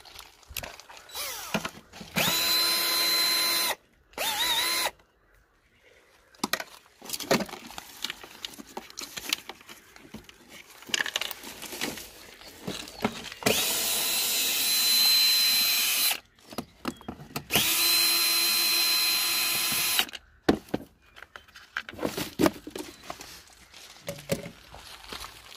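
Cordless drill-driver running in four bursts of about half a second to three seconds. Each spins up to a steady high whine. Scattered clicks and knocks fall in between.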